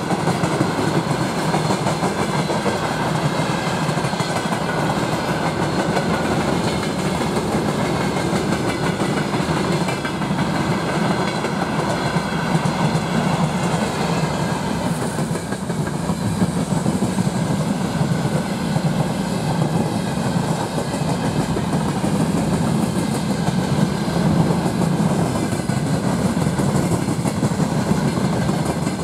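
Freight train wagons (tank cars, open gondolas and covered hoppers) rolling past close by: a loud, steady rumble of steel wheels on the rails.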